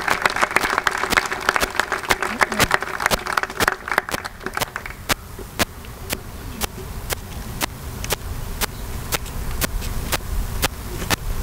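Audience applauding outdoors: dense clapping for the first four seconds or so, then thinning to a few scattered, evenly spaced claps that keep going.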